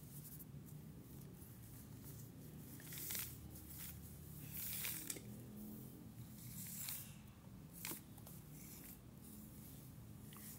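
Cardboard jigsaw puzzle pieces being handled on the floor: several short scrapes and clicks as pieces are picked up, slid and pressed together, the loudest about five seconds in.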